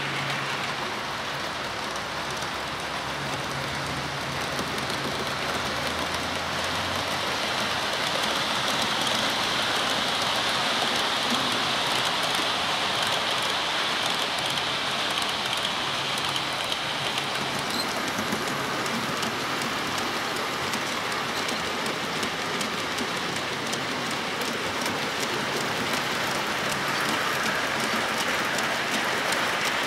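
OO gauge model trains running on the layout's track: a steady rattling hiss of small metal wheels on rail. A low motor hum sits under it for the first several seconds, and the hiss is brighter for a stretch in the middle.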